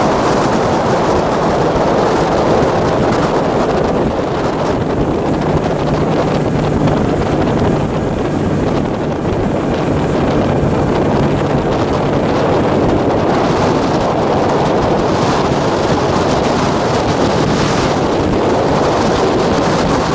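Yamaha F170 four-stroke outboard running steadily at planing speed, with water rushing and spraying off the hull and wind buffeting the microphone. A low steady engine hum sits under the noise, clearest in the middle.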